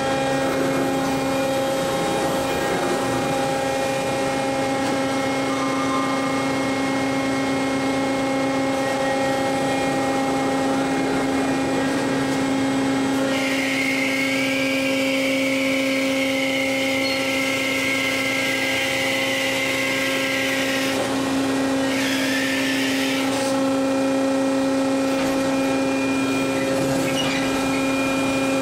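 Motorised forklift battery changer running: a steady electric-motor hum with several held tones. A higher, rushing whine joins for about seven seconds midway and comes back briefly just after.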